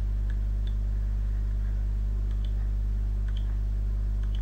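Steady low electrical hum of background noise, unchanging throughout, with a few faint clicks.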